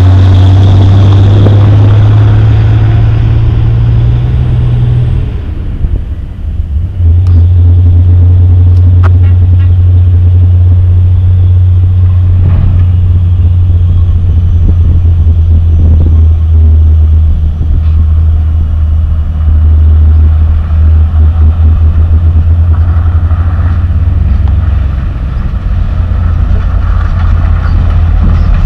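Diesel engine of a Hino coal-haul dump truck pulling away, its note rising over the first few seconds, then a steady low rumble. Near the end another Hino dump truck comes closer.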